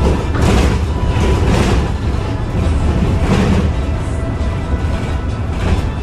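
Cabin noise of a moving Foton eBus U12 electric bus: a steady low road rumble with several brief surges of rattling and bumping. Music plays along with it.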